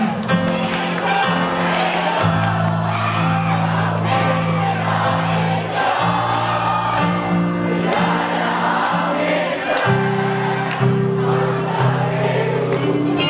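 Live rock band playing: electric guitars, bass, drums and keyboards with a singing voice, loud held chords shifting every second or two over steady drum hits.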